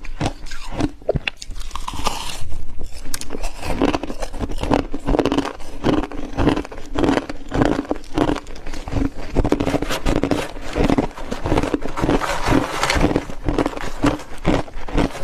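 A person biting and chewing deep-freezer frost, with repeated crunches coming a few a second.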